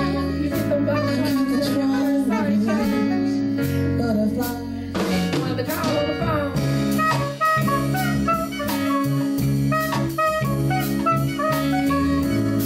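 Live jazz band playing an instrumental passage, with drum kit and saxophone over keyboard and guitar.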